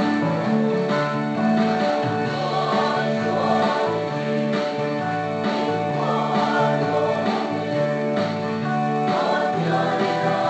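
A song with singing voices over a guitar-led accompaniment.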